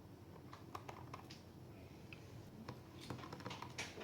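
Scattered light clicks and taps from laptop parts being handled during a battery replacement, faint and irregular, with a quick cluster near the end.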